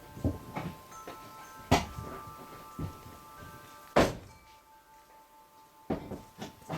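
Knocks and thunks of kitchen demolition as boards and fittings are pried loose and struck, with two sharp, loud knocks about two seconds apart and several lighter ones.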